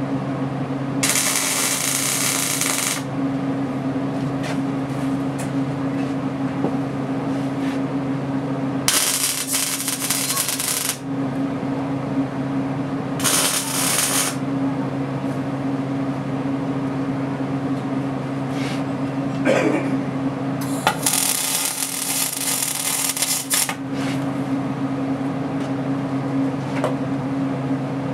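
Steel plate being tack-welded with an electric welder: a steady hum all through, broken by four short bursts of arc crackle, each one to three seconds long.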